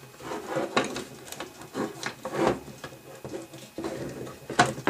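Plastic furnace control board cover being handled and pressed together on a wooden tabletop: irregular rubbing and scraping with small clicks and knocks as the copper terminals are worked through the cover, and a sharp click near the end.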